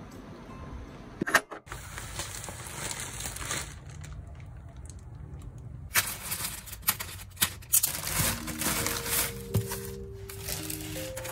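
Plastic mailer and bubble wrap crinkling and tearing as a parcel is slit open with a box cutter, in a run of sharp crackles from about halfway in. Soft background music comes in near the end.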